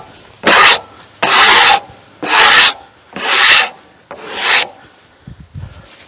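Five rasping scraping strokes on freshly sawn oak boards, about a second apart, then a pause with lighter handling knocks near the end.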